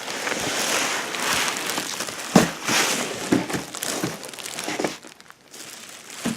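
Packaging being handled and pulled apart while a generator is unboxed: continuous crinkling and rustling, with a few knocks, the loudest about two and a half seconds in.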